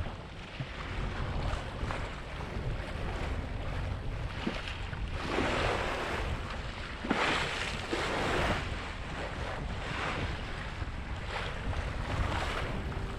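Wind buffeting the microphone over water rushing along a sailboat's hull under way, with a few louder surges of splashing spray about five and seven seconds in.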